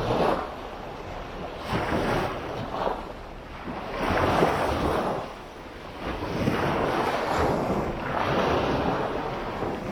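Sea waves breaking and washing up the beach, a rushing wash that swells and ebbs with a new surge every couple of seconds.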